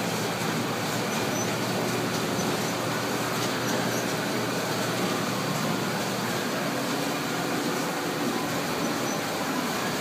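Large-format poster printers and shop machinery running: a steady mechanical noise with a low hum underneath.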